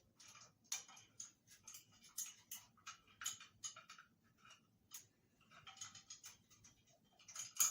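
A parrot's beak clicking, tapping and scraping irregularly at a foraging toy as it works a treat loose, with a louder click near the end.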